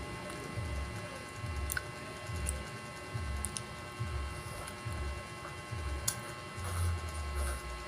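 Close-up chewing and mouth sounds from eating an ice cream bar: a soft, uneven chewing rhythm of a little more than one chew a second, with a few short wet clicks and smacks, over a faint steady hum.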